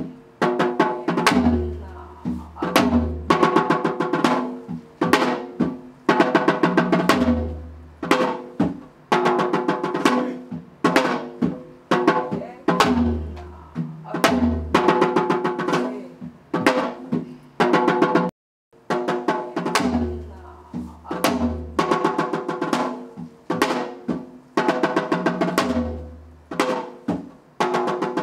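Korean traditional drumming as intro music: quick runs of sharp, ringing drum strokes with a low booming beat every few seconds. It stops dead for a moment about two-thirds through, then starts again.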